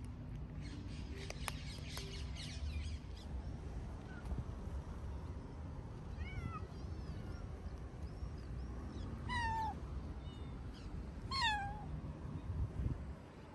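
Tabby street cat meowing: two loud meows about two seconds apart in the second half, each falling in pitch.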